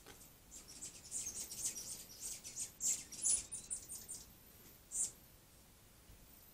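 A small bird chirping: a quick, uneven run of short, high chirps, with a few louder ones about three seconds in and one more about five seconds in.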